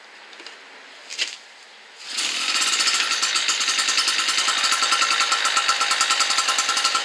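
Small 63 cc two-stroke portable generator being started cold on the choke: after a short scrape about a second in, the engine catches about two seconds in and runs with a loud, fast, even buzz.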